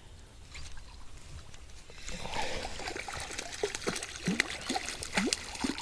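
Water splashing and trickling, with small bubbly plops and clicks, starting about two seconds in.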